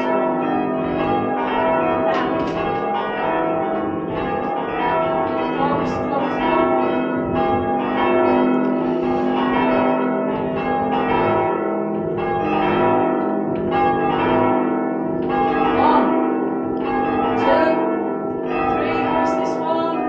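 Church bells being change-rung: a ring of tower bells struck one after another in an unbroken, steady sequence, each bell's tone ringing on under the next strokes.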